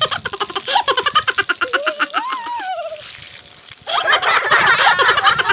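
Water from a running garden hose splashing and spattering over a person and the ground, with a brief wavering vocal sound in the middle. The water sound drops off for about a second, then comes back denser and louder near the end.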